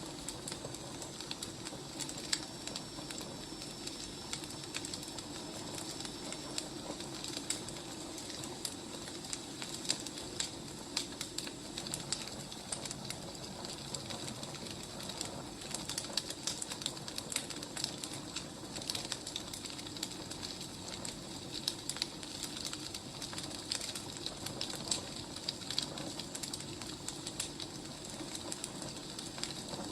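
Wood fire crackling steadily, with irregular sharp pops and snaps over a soft steady rush.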